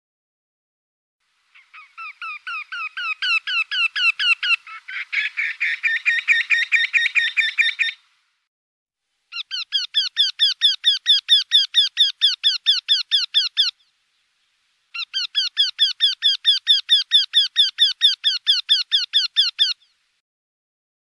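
Eurasian wryneck singing: three runs of evenly repeated nasal 'kee-kee-kee' notes, about four to five a second. The first run builds in loudness and is overlapped for about three seconds by a second, denser run of the same notes.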